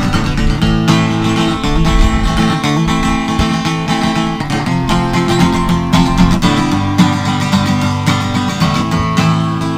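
Acoustic guitar strummed in a steady rhythm, an instrumental passage without singing.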